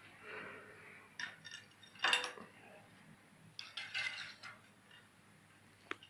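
Metal objects clinking and clattering in a few short bursts, with a single sharp click near the end.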